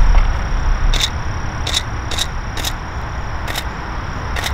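Camera shutter firing a handful of single frames at irregular intervals, each a short sharp click.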